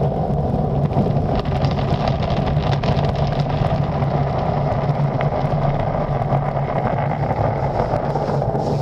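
Water jets of a tunnel car wash spraying against the windshield and body, heard from inside the car's cabin as a steady rushing, with a steady low hum underneath.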